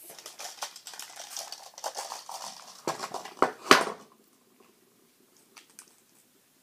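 A handful of plastic liquid lipstick tubes clattering and clicking against each other as they are handled and set down, with a sharper knock a little before four seconds in. The clatter stops about four seconds in, leaving a couple of faint clicks.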